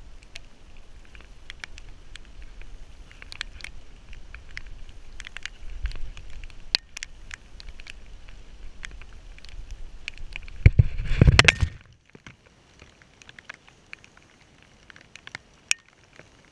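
Dog-mounted GoPro housing rustling and clicking against the harness and fur as a Labrador moves through wet undergrowth. About eleven seconds in comes a loud scuffle of about a second, the dog shaking off rain and knocking the camera mount loose. After that it goes much quieter, with only a few faint ticks while the camera lies still.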